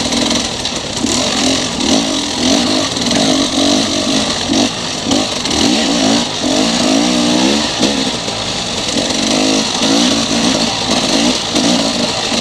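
Dirt bike engine revving up and down over and over as the throttle is opened and closed, with a steady hiss of wind on the microphone.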